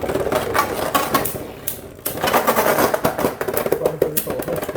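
Two Beyblade spinning tops, one of them 3D-printed, whirring and clashing in a plastic stadium in a same-spin battle: a steady spinning hum with rapid, irregular clicks of impacts, easing briefly about two seconds in before the clicks pick up again.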